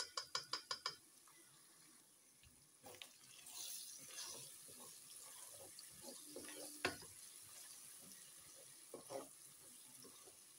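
Onion-tomato masala frying gently in a nonstick pot while freshly added ground spices are stirred in with a spatula: a quick run of about seven taps in the first second, then a soft sizzle with scattered scrapes and knocks of the spatula on the pot.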